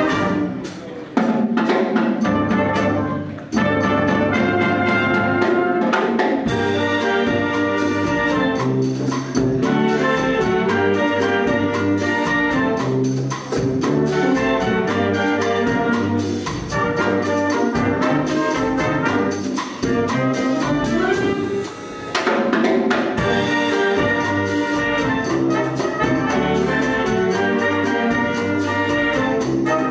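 Concert wind band playing a Cuban-style piece: brass, saxophones and clarinets over a steady drum-kit beat, with short breaks in the sound about one and three and a half seconds in.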